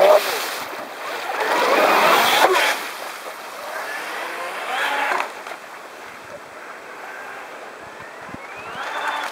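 Radio-controlled model jet boat under way: its motor whines, rising and falling in pitch with the throttle, over the rush of its water jet and spray. It is loudest as it passes close about two seconds in, and its pitch climbs again near the end.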